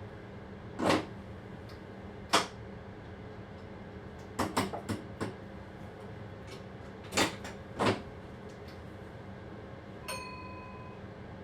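Train driver's cab: a steady running hum with several sharp knocks and clatters, one about a second in, another a second and a half later, a quick cluster around five seconds in and two more about eight seconds in. A short electronic beep sounds near the end.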